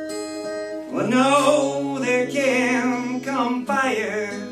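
A man singing a long, wavering line over an acoustic guitar; the guitar rings alone at first and the voice comes in about a second in.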